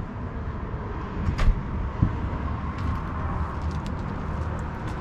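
Handling noise from a moving handheld camera over a steady low rumble, with two thumps about one and a half and two seconds in.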